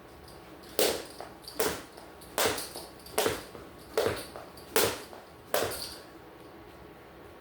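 Jump rope skipping: seven even thuds of feet and rope landing on the floor, a little under one a second, stopping about six seconds in.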